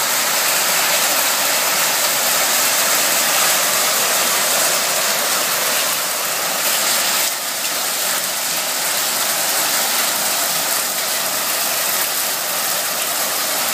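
Heavy hail falling: a loud, steady hiss of hailstones pelting down.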